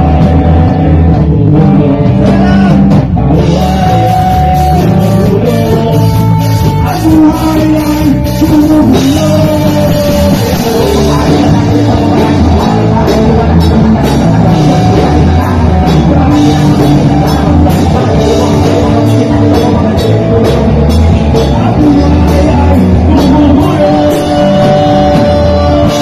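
Live rock band playing loudly: distorted electric guitars, bass guitar and drum kit, with a lead singer's voice over them.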